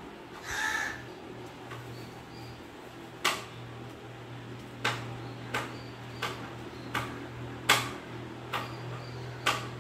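Small kitchen knife cutting through green chillies held in the hand, a sharp snap with each cut, eight of them spaced under a second apart from about three seconds in, over a steady low hum. A brief call-like cry sounds about half a second in.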